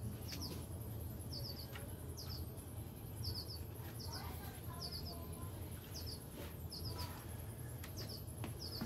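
A small bird chirping over and over in the background: short, high chirps in twos and threes, about once a second, over a steady low hum.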